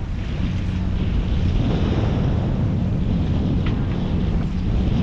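Wind buffeting the microphone over the wash of water along the hull of a sailboat under sail with its engine off.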